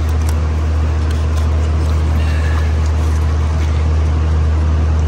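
A steady low hum, with a few faint clicks near the start as the plastic ignition-coil connectors are unplugged.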